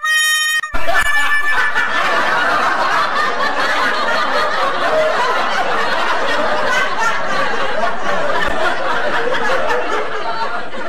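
A crowd of people laughing at once, like a laugh track, starting about a second in and tapering off slightly near the end. Before it, a high-pitched scream cuts off abruptly.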